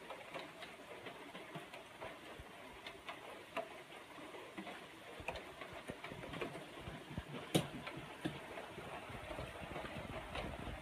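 Rain falling steadily, with irregular drips ticking throughout and one sharper tick about seven and a half seconds in.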